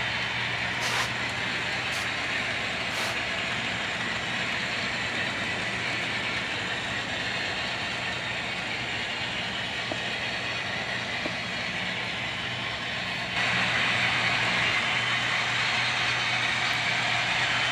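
Model freight train running on a layout: a steady hum and rolling hiss, with a few faint clicks in the first few seconds. The noise steps up louder and brighter about thirteen seconds in.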